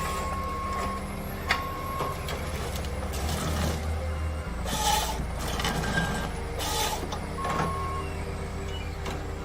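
Machinery running with a steady low hum, broken by a few short beeps and a couple of brief bursts of hissing air about five and seven seconds in.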